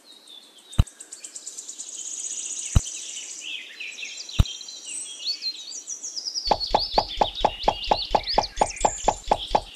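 Birds chirping and twittering, with three sharp clicks in the first half. From about two-thirds of the way in, a loud rapid pulsing trill of about six pulses a second joins in.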